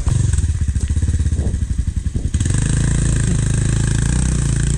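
Motorcycle engine idling with a lumpy, pulsing beat, then running steadier and louder from about two seconds in as the throttle is opened.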